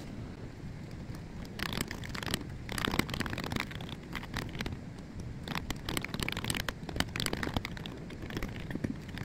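Pages of a thick paper book being turned and rustled by hand, in several crackly bursts, about two and three seconds in and again for a longer stretch in the second half, over a steady low room hum.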